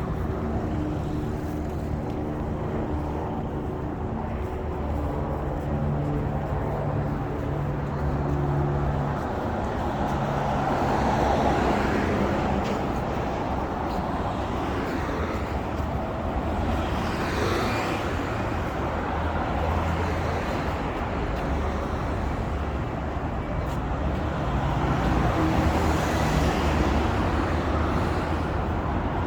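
Road traffic: a steady rumble of motor vehicles with engine hum, and several vehicles swelling past one after another.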